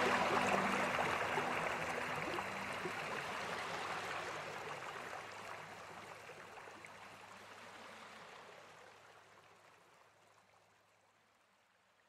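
Rushing stream water, a steady hiss that fades out slowly to near silence by the end. A few held music notes die away in the first couple of seconds.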